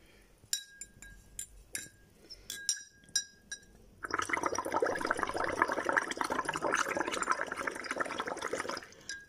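A few light clinks of a pen barrel against a glass, then, about four seconds in, steady bubbling as air is blown through the pen tube into a glass of water, lasting about five seconds and stopping just before the end.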